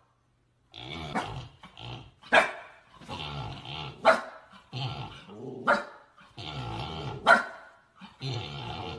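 Husky barking in five sharp barks about a second and a half apart, with growling between them.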